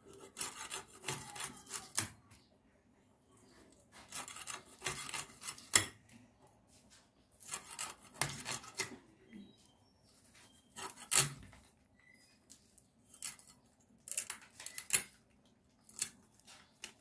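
Hilsa fish being sliced into steaks on a bonti, the fixed upright Bengali kitchen blade. Bouts of rasping, crunching strokes come a few seconds apart as the fish is drawn through the blade, several ending in a sharp crack as the backbone is cut through.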